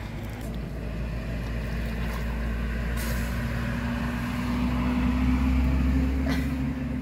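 A motor engine running steadily, growing louder over several seconds and easing off near the end, like a vehicle passing.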